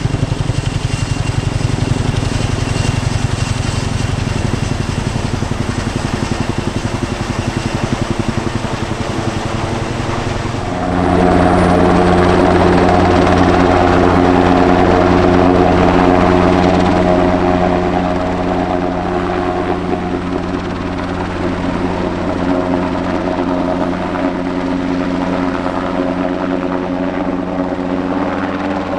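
Helicopter running close by, with a rapid, even rotor chop. About eleven seconds in, the sound changes abruptly to a louder, steadier engine and rotor hum carrying several held tones.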